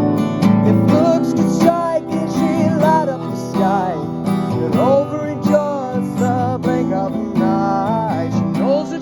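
Instrumental break of an acoustic song: an acoustic guitar strumming chords, with a lead melody of sliding, bending notes played over it from about a second in.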